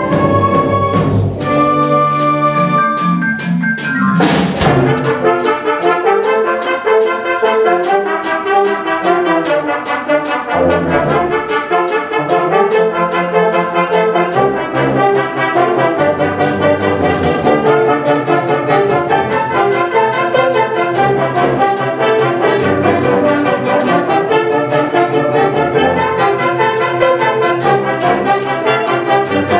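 Concert wind band playing a film-music arrangement live: a held chord, then percussion comes in with a steady quick beat about a second and a half in, with a loud hit near four seconds in. Brass and woodwinds play the tune over the beat.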